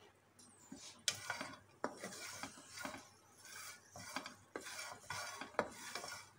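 Wooden spatula stirring sweet corn kernels roasting in a pan: irregular scraping and clinking that starts about a second in.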